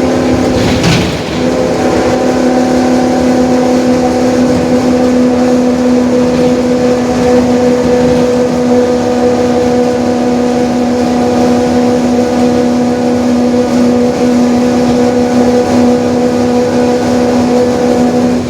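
Mercedes-Benz OF-1721 Bluetec 5 city bus under way at a steady speed: its diesel engine runs under a loud, steady droning whine from the differential. There is a brief knock about a second in.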